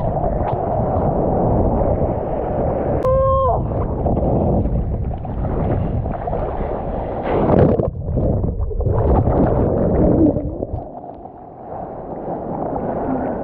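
Seawater rushing and splashing around a surfboard-mounted action camera as the board rides through a wave, with wind and water buffeting the microphone. A short high pitched tone sounds about three seconds in, and the rush eases after about eleven seconds as the board glides onto calmer water.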